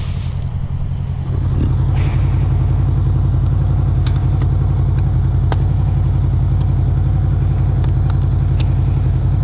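A 2018 Honda VFR800F's V4 engine running steadily at a constant speed, a little louder from about a second in, with a few light clicks over it.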